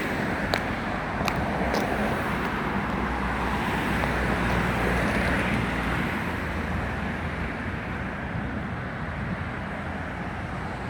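Steady road traffic from cars going by on a city road, heard from the roadside. It swells a little midway and eases off toward the end, with a few light clicks in the first two seconds.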